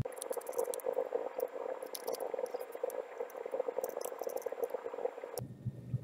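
Screwdriver driving the mounting screws into an SSD's drive bracket: a dense, fast rattling chatter with scattered small clicks. It starts abruptly and cuts off suddenly about five seconds in.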